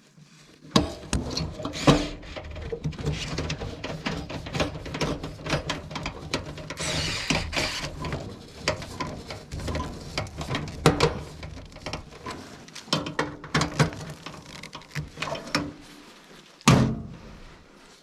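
Irregular clicking, knocking and clattering of a hand tool against a gas furnace's burner assembly and sheet metal as the burner's failed temperature limit sensor is unscrewed for replacement, with a few louder knocks, the loudest about a second before the end.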